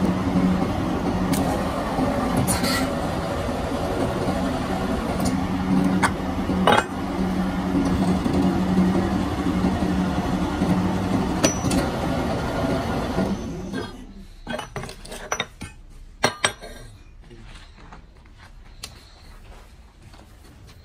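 Metal-forming press running with a steady hum while a sheet-metal cup is pressed in its die, with a few sharp metallic clanks. The motor stops about two-thirds of the way through, followed by scattered clinks and knocks of the metal parts being handled.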